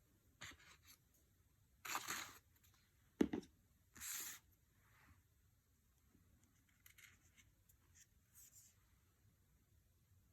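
Oracle deck cards being handled in a flip through: short, faint papery rustles and slides of cards, with one sharp tap a little after three seconds in.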